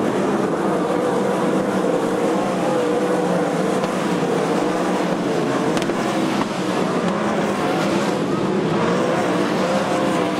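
Sprint car engines running at low speed, a steady drone that wavers slightly in pitch.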